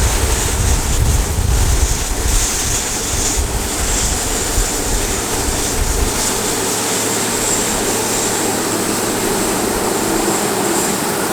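Farm harvesting machinery running steadily in the field, with wind buffeting the microphone, gustier in the first half.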